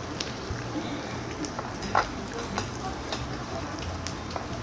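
Frozen pork belly sizzling and crackling on a tabletop barbecue grill plate, with scattered small pops and one sharper pop about two seconds in.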